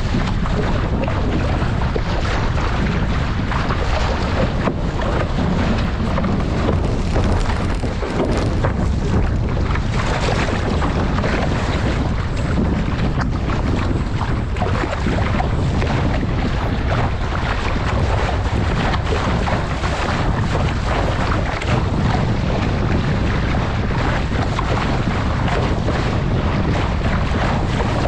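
Constant wind buffeting the microphone over water rushing and splashing along the hull of an RS600 trapeze dinghy beating to windward at speed. The sound is steady and loud throughout, with quick gusty flutters.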